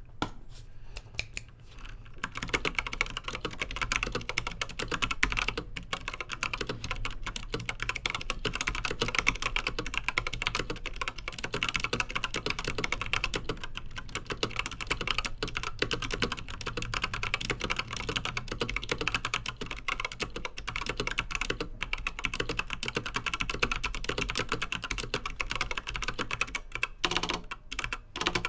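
Continuous typing on a WASD Code V2 mechanical keyboard with 67 g Zealio tactile switches, thick PBT keycaps and a steel plate: a dense stream of key clacks. It starts with a few scattered strokes and picks up to steady, fast typing about two seconds in.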